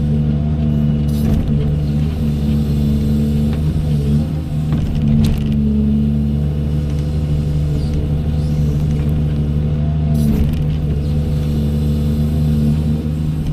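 Doosan 210W wheeled excavator's diesel engine running steadily while the machine works, with a few sharp clicks or knocks about a second, five seconds and ten seconds in.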